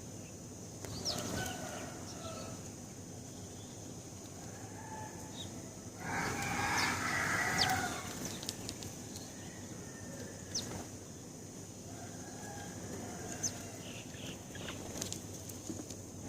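House sparrows chirping in short, scattered high notes, with a louder, harsher call of about two seconds from a larger bird some six seconds in.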